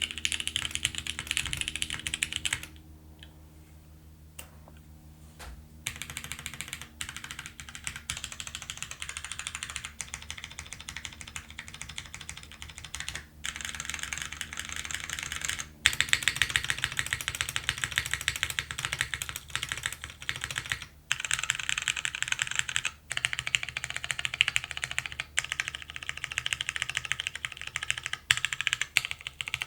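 Typing on a top-mount custom mechanical keyboard with Cherry MX Brown switches, a polypropylene plate and GMK keycaps: a dense, steady patter of keystrokes. It stops for about three seconds near the start, then resumes.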